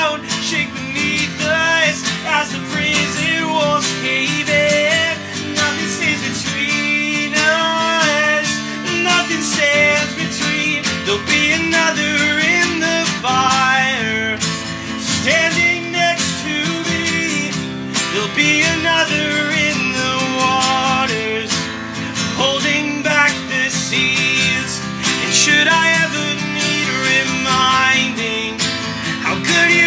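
Steel-string acoustic guitar strummed in a steady rhythm, with a voice singing a slow melody over it.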